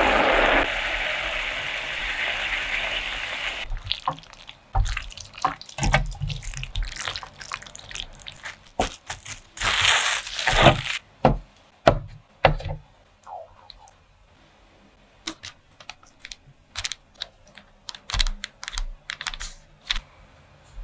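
Diced pineapple and sugar simmering in a pan, a steady sizzling hiss that stops about four seconds in. Then scattered light clicks and taps of kitchen handling, with about a second of crinkling plastic cling film near the middle.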